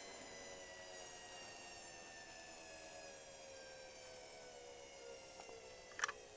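Privileg washing machine whining during the rinse of a hot wash: a whine of several tones that slowly falls in pitch, with a sharp click near the end. The owner finds the noise very strange.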